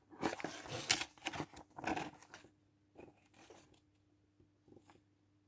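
Paper rustling as printed sheets are handled and unfolded. The rustling is strongest in the first two and a half seconds, followed by a few fainter rustles.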